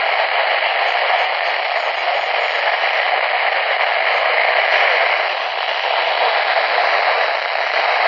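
Steady radio static hiss from a handheld weather-band radio's small speaker. No clear voice comes through the noise.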